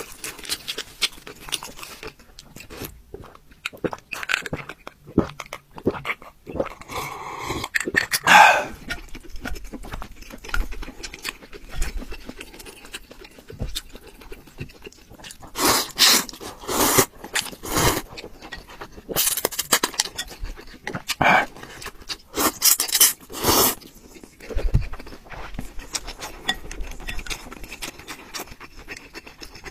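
Close-miked mukbang eating of a bowl of noodle soup: noodles and broth slurped in several loud bursts, mostly in the second half, with wet chewing and small clicks between.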